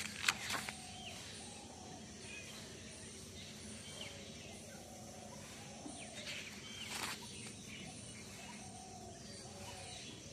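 Pages of a spiral notebook being turned by hand, with a rustle of paper about half a second in and another around seven seconds in, over birds chirping repeatedly.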